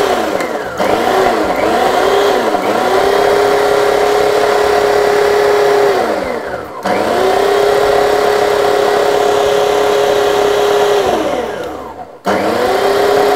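Small food processor motor pulsed on and off, cutting cold cubed butter into flour for scone dough. Several quick pulses in the first few seconds, then two longer runs of about four seconds, each spinning down and starting again. It is run in short pulses so that friction does not warm the butter.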